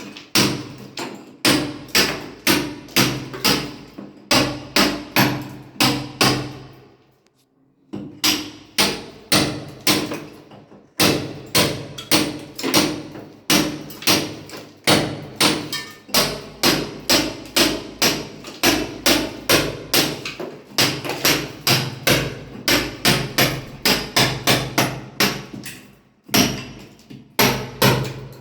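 Hammer blows on masonry as a wall is broken up: sharp, regular strikes about two to three a second, with a pause of about a second and a half some seven seconds in.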